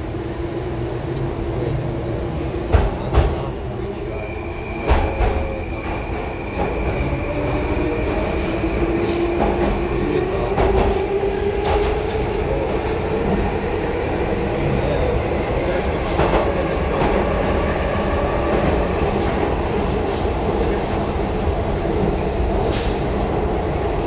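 Baltiets 81-725/726/727 metro train running, heard from inside the car: steady rumble and rail noise with a whine that slowly rises in pitch through most of the stretch. Two sharp knocks a few seconds in.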